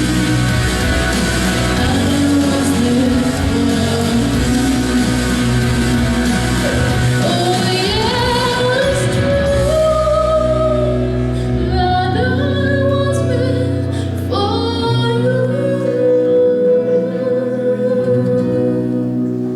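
A woman singing a ballad over a full band backing track, her voice climbing in pitch. About fifteen seconds in the backing thins and she holds one long final note.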